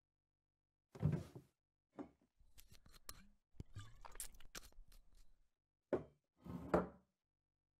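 Cartoon foley of a wooden dresser drawer sliding open, a glass bottle being handled with a run of small clicks and rustles, then the drawer pushed shut with two thuds near the end.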